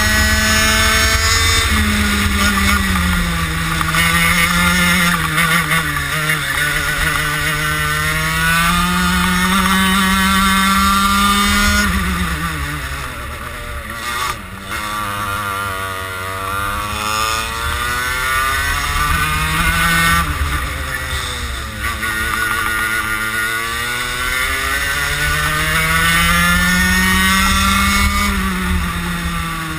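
Racing kart's engine heard from on board, with revs climbing along the straights and dropping away into the corners, several times over. The deepest dip comes about halfway through.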